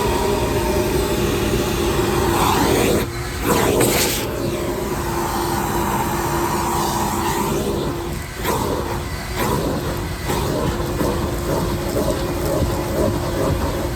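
Shop vac running steadily with a motor whine. Its note and loudness dip and shift briefly a few times.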